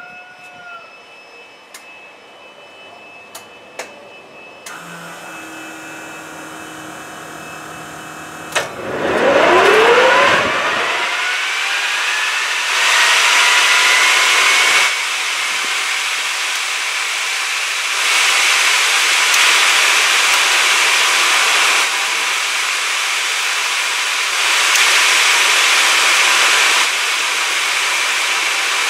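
Fairchild J44 turbojet on a first start attempt. A few clicks and a low electric hum come first. About eight seconds in there is a sharp click, and the engine spools up with a whine that rises in pitch. It settles into a steady high whine and rush of air that swells louder and softer every few seconds.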